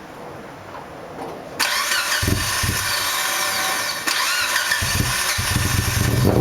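Car engine fitted with GSC S2 aftermarket camshafts being cranked by the starter with a loud whine, catching with a few low pulses, then running at idle.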